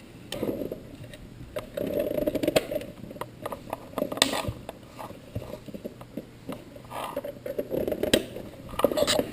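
Hands handling a small plastic smart-home hub and its cables: irregular clicks, taps and short rustles.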